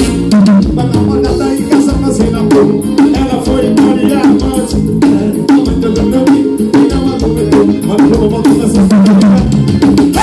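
Loud music with a steady drum beat, played over a car sound system.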